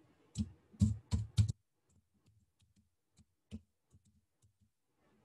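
Computer keyboard keystrokes: four sharp key clacks within the first second and a half, then a few scattered lighter taps.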